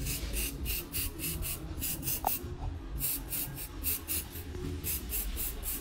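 Aerosol can of blue colour hair spray let off in rapid short bursts, about four or five a second, with a short pause about halfway through. The can is held back so only the mist settles on the hair.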